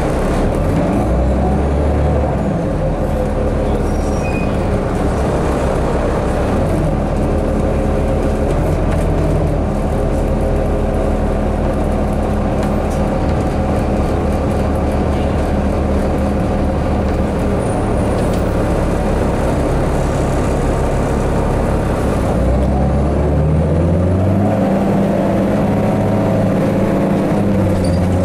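New Flyer D40i diesel city bus heard from inside the passenger cabin: engine and drivetrain running with road rumble as the bus travels. About 22 seconds in, the engine note climbs as the bus speeds up.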